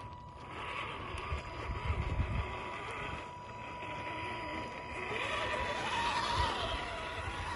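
Electric drivetrain of a 1/8-scale Traction Hobby Cragsman RC crawler whining as it drives, the pitch climbing about two-thirds of the way in and then rising and falling with the throttle, with tyres crunching over gravel.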